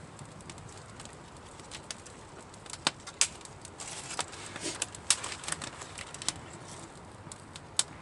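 Small wood campfire crackling, with irregular sharp pops, the loudest about three, five and nearly eight seconds in.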